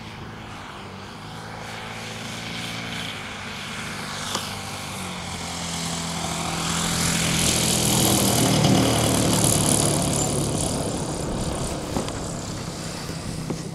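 Gasoline engine and propeller of a large radio-controlled aerobatic airplane running steadily as it comes in to land. It grows louder as the plane approaches, is loudest about eight to nine seconds in, then eases off as it rolls along the runway.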